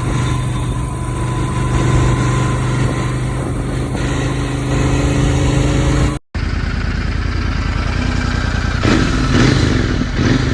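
Royal Enfield Continental GT 650's 648 cc parallel-twin engine running steadily. After a cut about six seconds in, it is revved a couple of times, the stock-exhaust sound.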